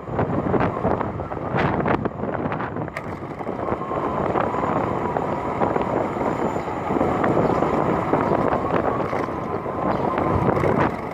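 A vehicle's engine running steadily under heavy wind noise on the microphone, with a faint steady whine through the middle.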